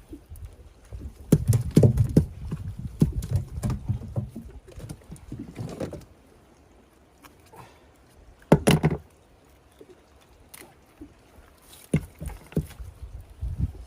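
Irregular knocks, thumps and clatter on a small fishing boat as a net is hauled in and the catch handled, over a low rumble of water against the hull. A dense run of knocks comes in the first few seconds, then one loud thump about eight and a half seconds in, and a few more knocks near the end.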